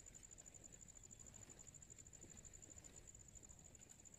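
Near silence, with the faint, steady, high-pitched trill of an insect pulsing rapidly and evenly.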